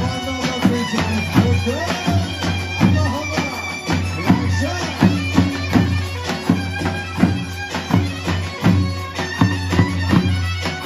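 Davul bass drum beaten with a heavy mallet and a thin switch in a steady dance rhythm, several strokes a second, under a shrill, reedy wind-instrument melody that slides between notes: live Turkish folk wedding dance music.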